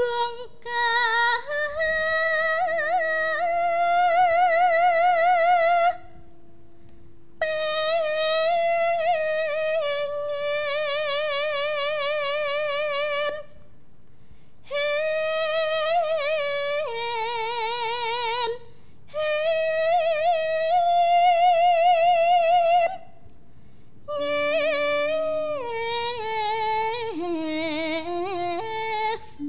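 A Javanese gamelan waranggana (female solo singer) singing long, slow phrases with a wide, fast vibrato on the held notes, five phrases in all with short breaths between them. A few faint held instrument notes sound beneath her.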